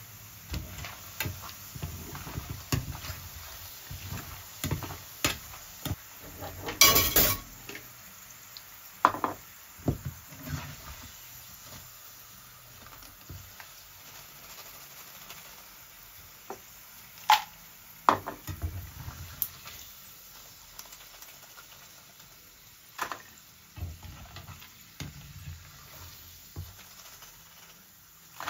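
Plantain slices frying in shallow oil in a pan, with a steady sizzle, and a wire skimmer clicking and scraping against the pan as the slices are lifted out. The loudest clatter comes about seven seconds in.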